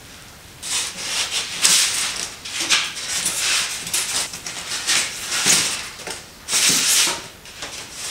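Packing material being handled: plastic wrap crinkling and a large polystyrene foam insert rubbing and scraping against the cardboard box as it is pulled out, in a series of irregular scratchy rustles.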